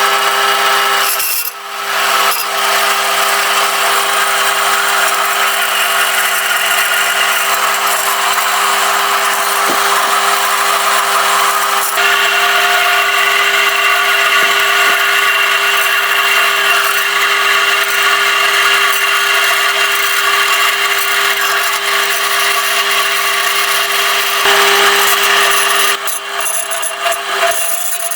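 Bandsaw running with a steady motor hum, its blade cutting through a block of aluminium. The cutting noise dips briefly about a second and a half in, grows heavier around the middle and eases a couple of seconds before the end.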